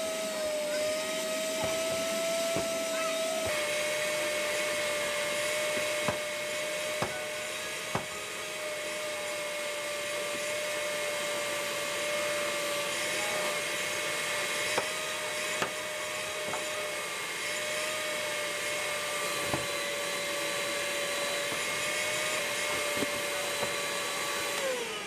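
An electric motor appliance, vacuum-cleaner-like, running steadily with a high whine over a rushing hiss and a few light knocks, then winding down with a falling pitch near the end.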